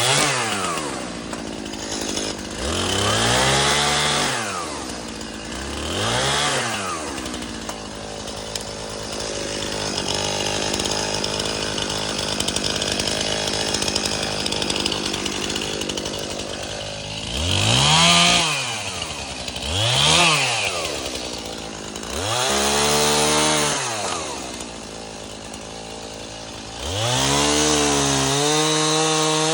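Chainsaw being revved up and back down about seven times as the throttle is squeezed and let off, held at a steady speed for several seconds in the middle.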